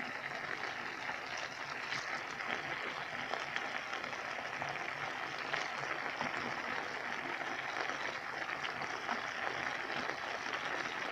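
Macaroni with chicken, carrots and canned stewed meat sizzling in hot oil in a frying pan: a steady hiss with fine crackling.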